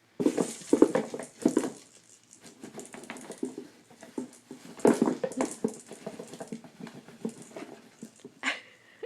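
Cat pawing and scratching at a cardboard box toy: irregular taps, scrapes and rustles of paws on cardboard, in busier flurries near the start and about five seconds in.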